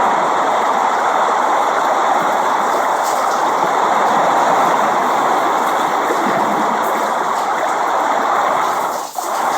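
Steady rain, a dense even hiss with no single drops standing out, with a brief drop in level near the end.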